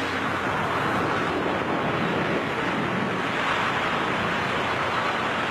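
Steady rushing wind noise of a skydiver's freefall buffeting the microphone, an even roar that holds at one level.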